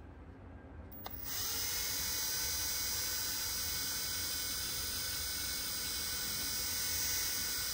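Cordless drill spinning a small brush attachment: a click about a second in, then the motor starts and runs at a steady speed with an even, high whine.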